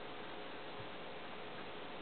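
Quiet room tone: a steady hiss with a faint hum and a few light ticks.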